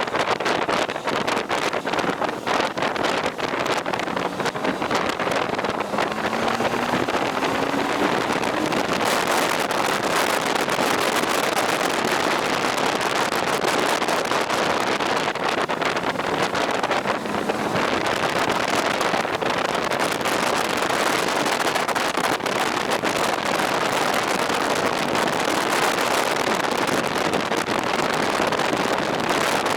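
Wind rushing over the microphone of a moving motorcycle, with the engine underneath. The engine note rises briefly about six to eight seconds in.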